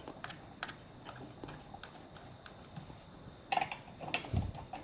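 Light metallic clicks and clinks of a steel wrench on the compressor pump's fittings as a nut is snugged down, with a few louder clinks about three and a half seconds in and a low thud near the end.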